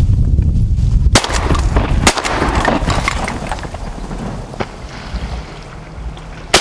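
Strong wind buffeting the microphone and rustling the dry reeds, broken by sharp cracks about a second in, about two seconds in, and again near the end.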